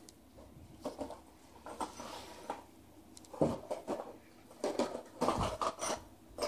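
Cardboard box scraping and bumping against the floor and walls as a cat wearing it over its head blunders about, with paws pattering on wooden floorboards: a run of irregular scuffs and knocks, the loudest a little past halfway and near the end.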